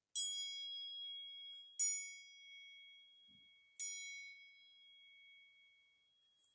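A small handcrafted hanging bell rung by hand three times, about two seconds apart, each strike giving a bright, clear note with several ringing overtones that fades slowly.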